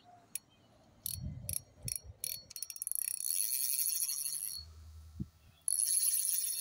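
Ashino KU2000 spinning reel's drag clicker: a few single clicks, then fast, high-pitched clicking as line is pulled off the spool, in a run of about two seconds and another of about a second near the end. The clicking is the sign that the drag clicker has been fitted and is working.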